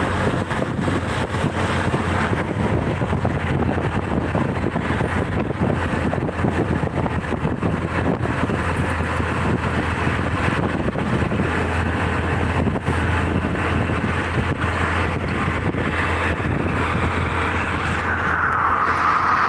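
Steady engine and road noise heard from inside a moving auto-rickshaw, its small engine running at a constant pace under the rumble of tyres and passing traffic.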